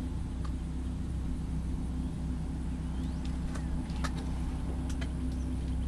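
Steady low engine hum with a few faint clicks.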